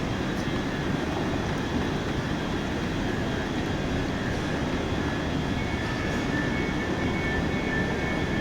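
Steady low rumble of trains standing and running at the platforms of a large railway station, with a faint high whine joining about two-thirds of the way through.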